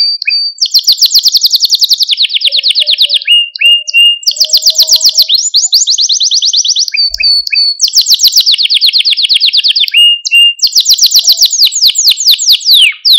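Canary singing a continuous song of rapid trills, each a fast run of identical high notes that gives way to a new trill every second or two, with a few short lower chirps between them.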